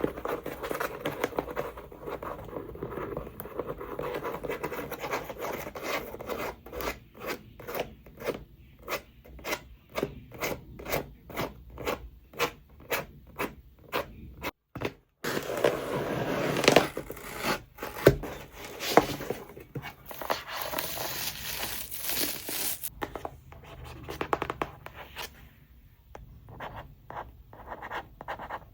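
Close-up scratching and scraping on tripod packaging as it is unboxed. In the middle comes a run of short, sharp scratches, about two a second, followed by a denser stretch of scraping.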